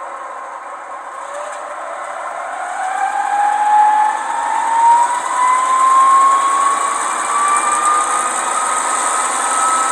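Gauge 1 Köf II model shunting locomotive pulling away again after an automatic brake stop: its sound decoder's diesel sound and running gear give a steady tone that rises smoothly in pitch as it speeds up.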